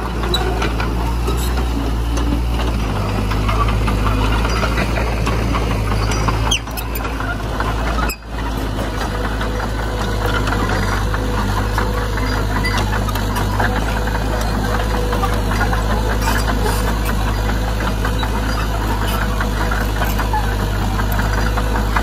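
Heavy diesel engines of earthmoving machinery running steadily with a deep drone, dipping briefly about eight seconds in.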